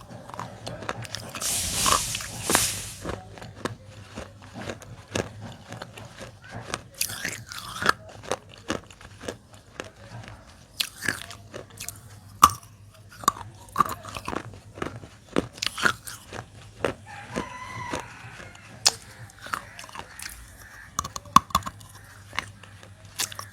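Dry baked clay being bitten and chewed close to the microphone: irregular sharp crunches and snaps. There is a brief hissing rustle about two seconds in.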